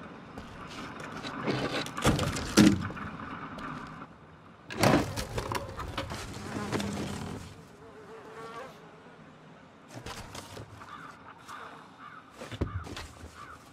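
A baby dragon hidden under wooden debris making a buzzing, trilling chirr, along with sharp knocks and clatter of wood as boards are pulled aside.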